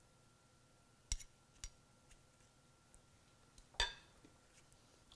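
A few light clinks of metal spoons while mushroom-and-egg filling is spooned into phyllo cups, the loudest nearly four seconds in.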